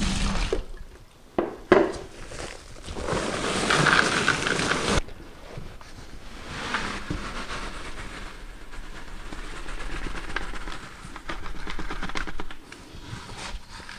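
Runny wet concrete slopping and sliding out of a plastic pail as it is poured, with a sharp knock a little under two seconds in. The louder pour cuts off suddenly about five seconds in, and quieter sliding of the mix goes on after it.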